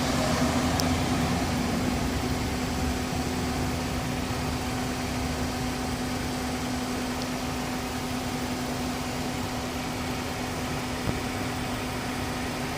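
Pickup truck engine running at a steady idle, a constant hum with a few faint isolated ticks; no rattle is heard.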